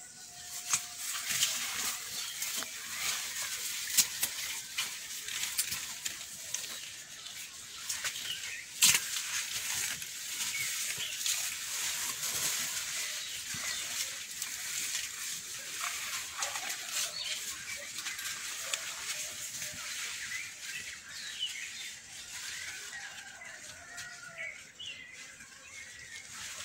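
Maize leaves and dry field vegetation rustling and crackling close by, with scattered sharp snaps. The loudest snaps come about 4 and 9 seconds in.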